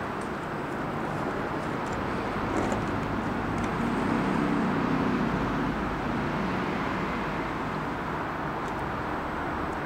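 Steady hum of road traffic, swelling as a vehicle passes about four to five seconds in, with a few faint ticks.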